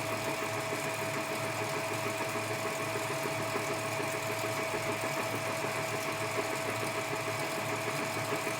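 Edgwick metal lathe running steadily, a constant whine over a busy mechanical hum.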